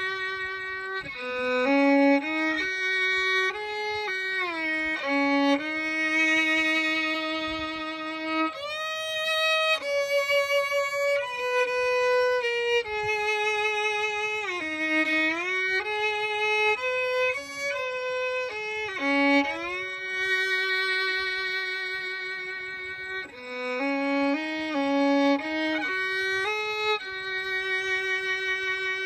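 Background music: a solo bowed fiddle playing a melody with held notes and frequent sliding pitch between them.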